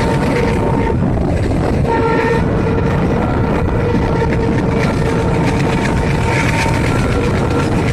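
Diesel train under way: a steady, loud rumble of the diesel engine and running gear, with a held mid-pitched whine that drops out for about a second near the start and then comes back.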